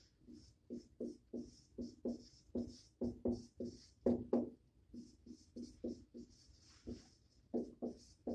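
Dry-erase marker squeaking and scraping on a whiteboard as a name is written, in an uneven run of short strokes, several a second.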